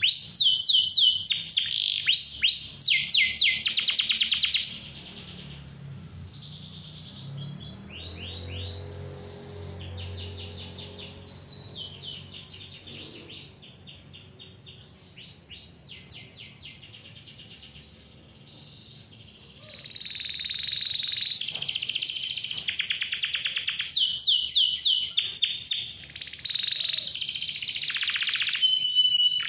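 Domestic canary singing long, high-pitched runs of rapid trills and rolls. The song drops to a softer stretch about five seconds in and comes back loud after about twenty seconds.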